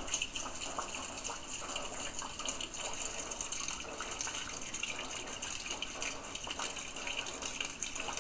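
Rainwater running off a roof and splashing into a bucket: a steady splashing hiss with many small irregular drips through it.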